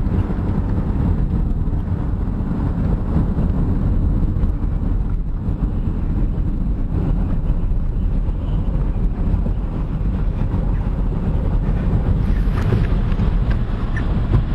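Steady low rumble of wind and road noise inside a moving car.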